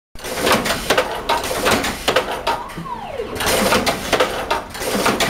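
Frozen fish cutting machine running, a busy clatter of sharp mechanical clicks and knocks as its multi-blade cutting head works on a frozen fish. A short falling whine comes about three seconds in.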